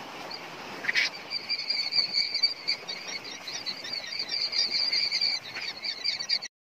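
Newly hatched quail chicks peeping together in a brooder: a dense chorus of many short, high peeps overlapping. It starts about a second in and cuts off suddenly near the end.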